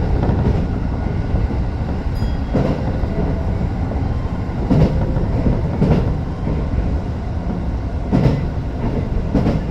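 Tokyo Metro 05 series electric train running at speed: a steady rumble of wheels on rail, with a clack from the rail joints every second or two.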